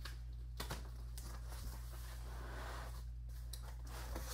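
Large cardboard shipping box being opened by hand: the flaps are pulled apart with cardboard rustling and scraping, and a sharp knock about half a second in. A steady low hum runs underneath.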